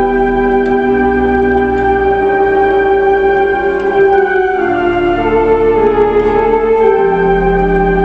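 Theatre organ playing slow, held chords over a deep pedal bass, the harmony changing every second or two.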